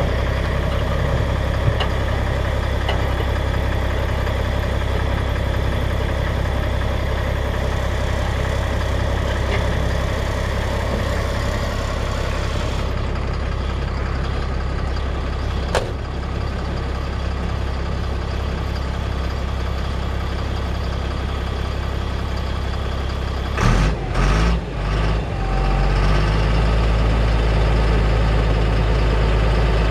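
Caterpillar 3116 6.6-litre six-cylinder diesel of a 1990 GMC TopKick dump truck idling steadily. A little past midway there is a sharp click, and a few clunks follow about 24 seconds in; after that the engine runs louder while the hydraulic hoist raises the dump bed.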